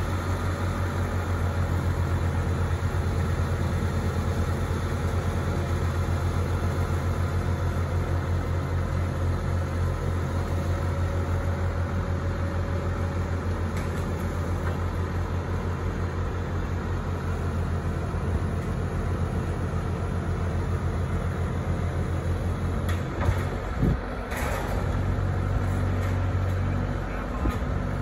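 Engines of two Bobcat skid-steer loaders running steadily as they carry the top section of a corn crib between them on pallet forks. A few sharp knocks sound near the end.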